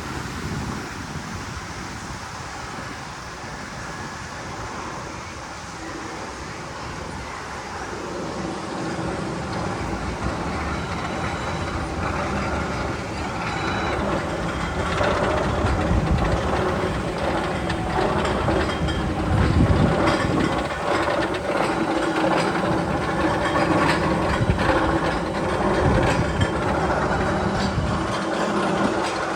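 Roller coaster train rumbling and clattering along its track. It grows louder about a third of the way in, with a steady rattle of clicks once it is close.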